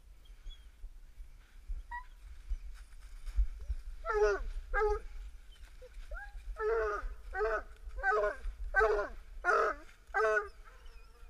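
A dog barking: about eight short, high barks in two bunches, starting about four seconds in, each bark dropping in pitch at its end.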